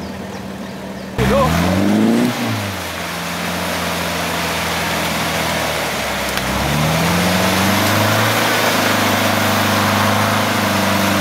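GAZ-69's four-cylinder engine revving hard while working through mud. Its pitch climbs about a second in and eases back, then rises again about halfway through and is held at high revs.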